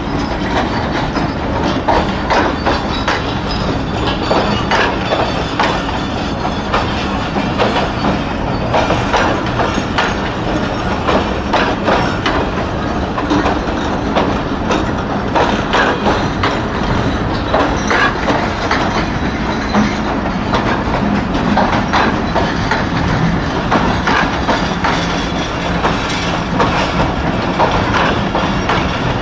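The passenger coaches of Pakistan Railways' 33UP Pak Business Express rolling slowly past as it arrives, the wheels clattering over the rail joints in a steady run of clicks and knocks.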